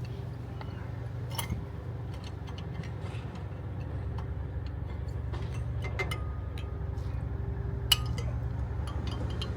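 Small metal clicks and clinks of a tool working against a front brake caliper as the piston is levered back, with one sharp click near the end, over a steady low hum.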